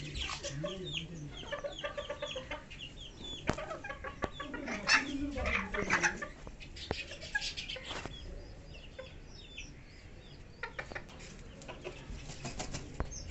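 Bantam chickens clucking, with a few sharp taps of beaks pecking at grubs on concrete.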